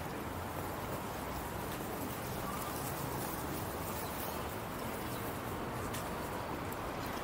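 Steady outdoor background noise with a few faint, short clicks scattered through it.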